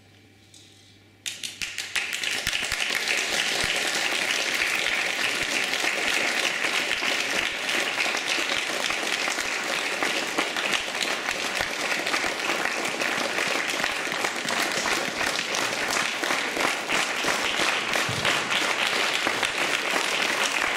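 After about a second of quiet, a theatre audience breaks into applause all at once, many hands clapping steadily.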